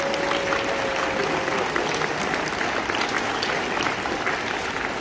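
Audience applauding steadily, a dense patter of many hands clapping. A single steady held note sounds above it for the first second and a half.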